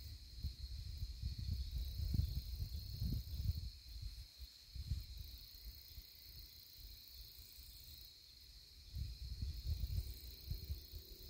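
Steady high-pitched insect chorus, with bursts of low rumble on the microphone, strongest in the first three seconds and again near the end.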